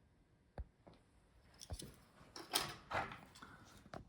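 Light clicks and knocks of laptop parts being handled and set down on a work surface, with a dull thump about half a second in and five or so sharper clicks after it, the loudest near the middle.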